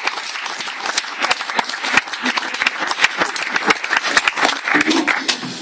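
Small audience applauding: a dense run of many overlapping hand claps, easing off slightly near the end.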